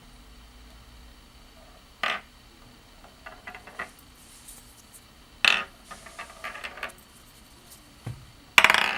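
Sharp clicks and light clatter of hard plastic toy figures and packaging being handled and set down, two sharper knocks standing out, with a louder rustle near the end.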